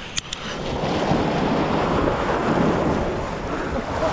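Ocean surf washing against rocks: a steady rushing that swells about half a second in, with wind buffeting the microphone. A few sharp clicks sound right at the start.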